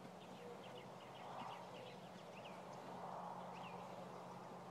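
Quiet barn ambience: small birds chirping faintly and often, over a steady low hum.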